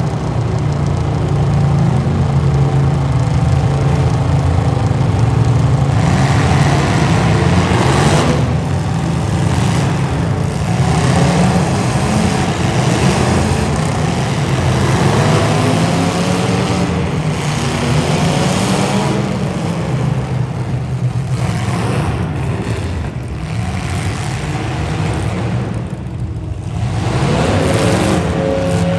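Several demolition derby car engines running and revving, their pitch rising and falling again and again as the cars accelerate and back off.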